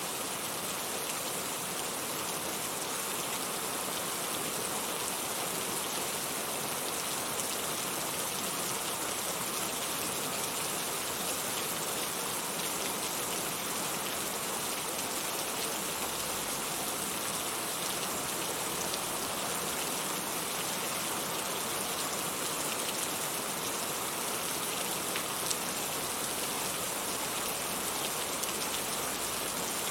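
Heavy rain falling steadily, a dense hiss of drops with fine scattered patter on surfaces.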